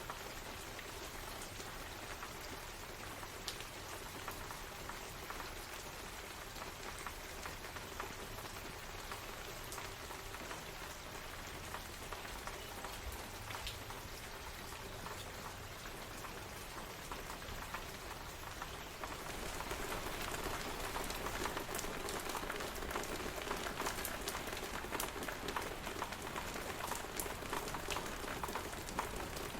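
Steady rain falling on a surface, with many small drop ticks. It grows louder and denser about two-thirds of the way in.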